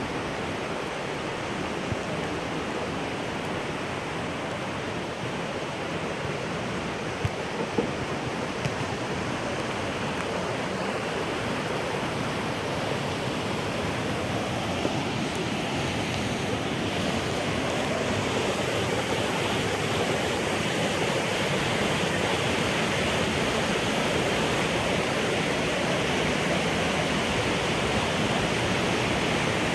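Rushing water of a fast mountain river and small waterfall in a narrow rock canyon: a steady, even rush that grows a little louder in the second half. A couple of brief knocks sound about seven to eight seconds in.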